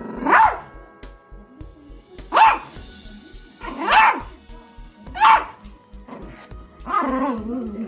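Pomeranian barking: four sharp barks about a second and a half apart, then a longer, drawn-out bark near the end. Background music with a steady beat plays throughout.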